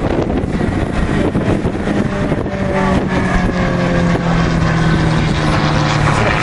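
Aerobatic aircraft's engine droning, its pitch sliding slowly down in the second half, over heavy wind noise on the microphone.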